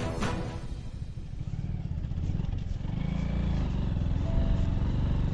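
Hero Super Splendor's single-cylinder engine running as the motorcycle is ridden, getting louder about three seconds in.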